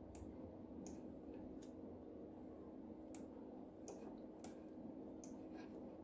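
Faint computer mouse clicks, about eight sharp clicks at irregular intervals, as a picture is selected, resized and moved on a slide, over a steady low hum.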